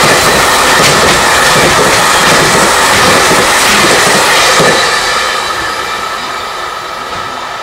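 Container freight train's wagons rolling past at speed, a loud steady rush of wheels on rail with a few wheel clacks. The last wagon goes by about five seconds in and the noise fades away as the train recedes.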